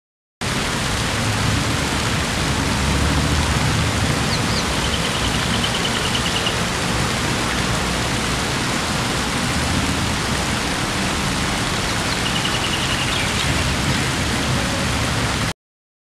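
Fountain jets falling into a pool, a steady splashing rush of water, with a low rumble underneath and two short, high, rapid chirping trills.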